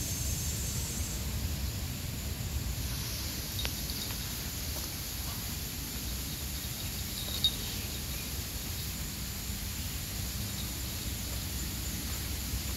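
Forest ambience: a steady low rumble of wind or handling on the microphone under a steady high hiss, with a few faint clicks and one short sharp snap about seven and a half seconds in.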